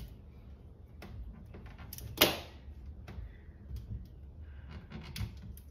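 Hands working vinyl wrap film onto a plastic car grille: scattered light clicks and rustles, with one sharp click about two seconds in.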